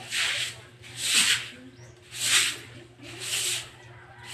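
Long-handled broom sweeping a wet floor: four rhythmic swishes of the bristles, about a second apart.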